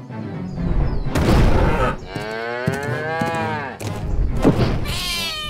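Cartoon cow mooing: one long moo that rises and then falls in pitch, after a heavy thump about a second in. A shorter call that falls steeply in pitch follows near the end.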